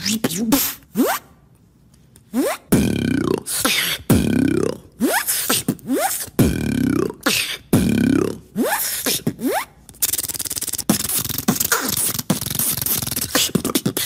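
A beatboxer making sound effects with his mouth and lips: short vocal sounds with sliding pitches, falling into a repeating pattern after a brief pause. About ten seconds in, they give way to a rapid, continuous buzz.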